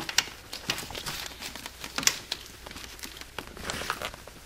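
Scattered light clicks, taps and rustling from hands handling a socket on a starter mounting bolt, turning it by hand. The clicks come irregularly, with no ratchet rhythm.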